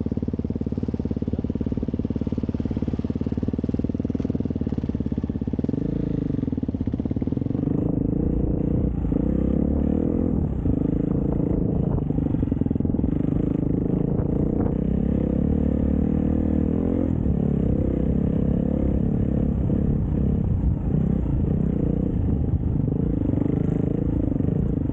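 Dirt bike engine idling steadily, then pulling away about five seconds in and accelerating, its pitch rising and dropping again and again as it works up through the gears.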